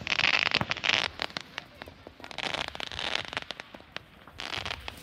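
Fireworks crackling: dense clusters of rapid pops in three bursts, the loudest at the start, another about halfway through, and a third near the end.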